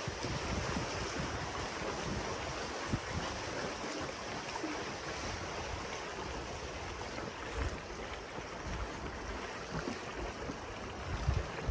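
Water rushing and lapping, with wind buffeting the microphone in a few low gusts.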